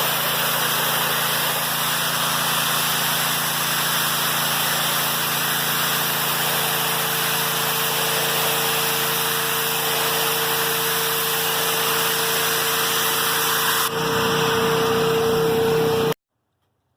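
Electric cleaning machine running steadily with a loud rushing noise and a low hum. A steady whine grows in about six seconds in, and the sound cuts off abruptly near the end.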